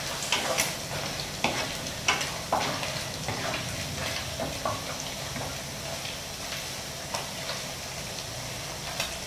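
Sugar-glazed shredded pork frying in hot oil in a stone-coated wok, a steady sizzle, being deep-fried to make it crisper. A wooden spatula stirs and scrapes against the pan, its strokes frequent in the first three seconds and then thinning out.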